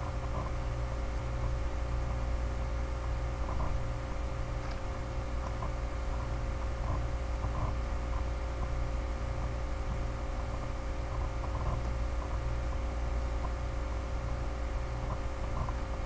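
Steady background hum of a computer setup, several fixed tones over a low drone, with faint soft ticks now and then.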